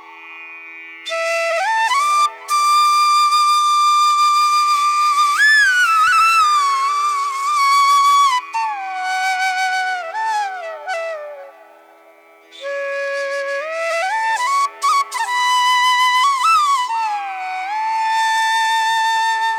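Flute ringtone melody: a single line that slides and bends between notes over a faint steady drone. It begins about a second in, pauses briefly around twelve seconds, and ends on a long held note.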